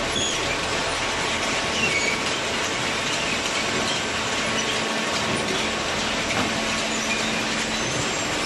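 Automatic horizontal hydraulic cardboard baler running: a steady, loud mechanical din with a low hum, clatter and scattered short high-pitched squeaks.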